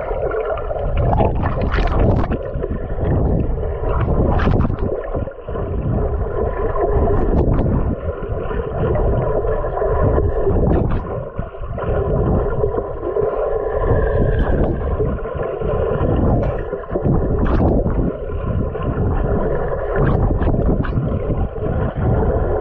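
Underwater sound of a swimming pool, picked up by a camera below the surface: a continuous muffled rumble and hum, with short sharp clicks now and then.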